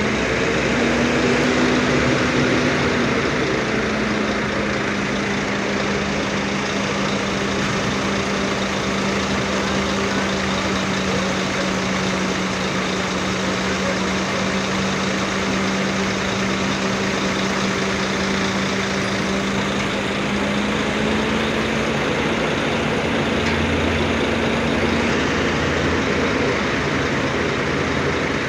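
An engine runs steadily under a loud even hiss. Its hum rises at the start, holds steady, and stops about 25 seconds in.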